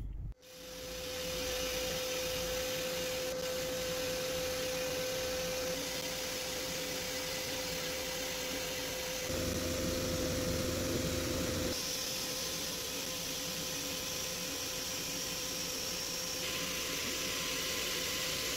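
Sandblaster gun blasting rusty metal parts inside a blast cabinet: a steady hiss of air and abrasive that swells in over the first second, with a steady hum underneath.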